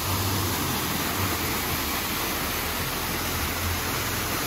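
Artificial waterfall pouring over rock into a pool: a steady, even rush of falling water.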